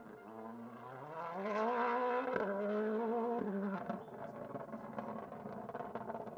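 A rally car's engine at full throttle coming past on a stage. Its pitch climbs, then drops sharply twice, about two and a half and three and a half seconds in, like gear changes, and it fades as the car goes away.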